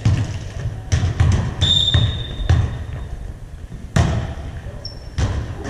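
A volleyball thudding on a hardwood gym floor, several bounces about half a second apart, then a sharp hit about four seconds in as it is served overhand; all of it echoes in the large hall. A short high squeak, like a sneaker on the floor, comes about two seconds in.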